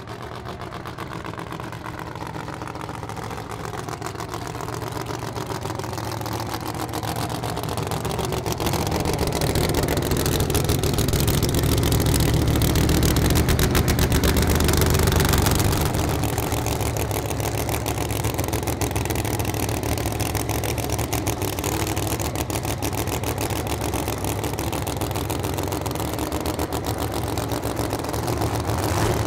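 Roots-supercharged 511 ci Hemi V8 of a methanol-burning drag car idling on the start line before a pass, its firing beat dense and even. It grows louder over the first dozen seconds or so, then holds steady.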